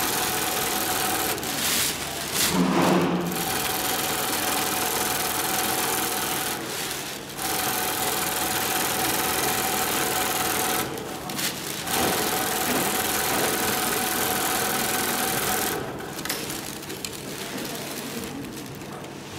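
Long-arm industrial zigzag sewing machine stitching sail cloth, running with a steady hum in stretches of several seconds with short stops between them, and running only in short spurts near the end.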